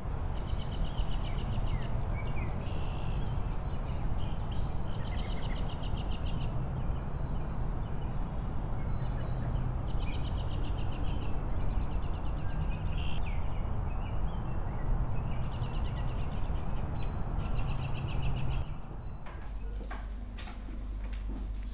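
Birds chirping and trilling in quick repeated bursts over a steady background hiss and hum. Near the end the birdsong cuts off and gives way to quieter room sound with a few sharp clicks.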